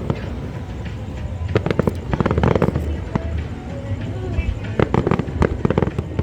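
Aerial fireworks bursting and crackling in two rapid clusters of sharp reports, one about a second and a half in and another near the end, over a steady low rumble.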